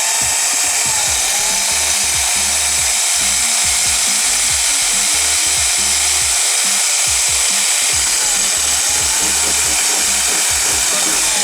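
Power drill running continuously, boring a bolt hole through a car's sheet-metal trunk lid, its motor pitch dipping and recovering a few times as the bit bites.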